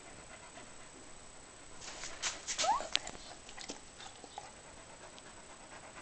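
Dog playing with a rubber squeaky ball: a flurry of clicks and scratches about two seconds in, with one short rising squeak.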